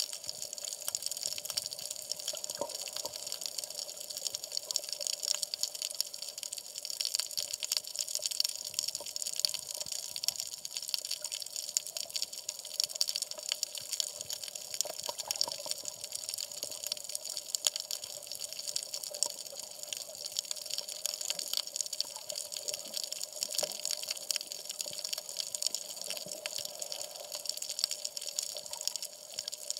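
Underwater ambience over a coral reef picked up by a submerged camera: a steady, dense crackle of tiny clicks with a faint hum underneath.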